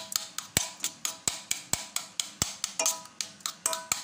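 A metal spoon knocking against the sides and bottom of a stainless steel pot while stirring thick pumpkin soup. The knocks come about four to five times a second, and the pot rings briefly after some of them.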